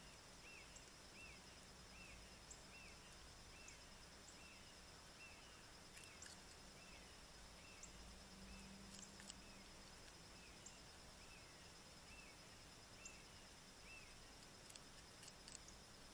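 Near silence: faint outdoor ambience with a soft chirp repeating about twice a second that stops near the end, a faint steady high-pitched hum, and a few faint clicks.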